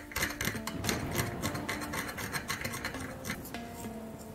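Thin metal pick scraping old red paint from a bare die-cast metal model car body: a quick run of short scratchy strokes that thins out near the end, over soft background music.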